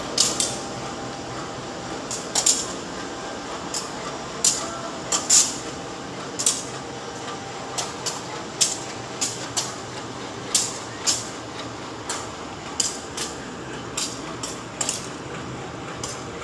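Footsteps clicking on a hard tiled platform, one sharp step roughly every half second to second, over a steady background noise.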